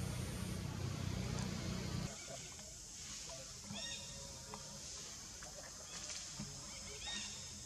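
Outdoor tree-canopy ambience. A short, high chirping animal call sounds twice, about four seconds in and again near the end, over a steady high hiss. Low rumbling noise fills the first two seconds, then drops away.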